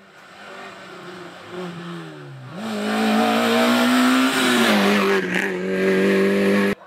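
Rally car engine revving hard past a bend on an asphalt stage. Its pitch sinks, then rises sharply about two and a half seconds in and climbs as the car comes past at full throttle. It drops back after about four and a half seconds and cuts off abruptly near the end.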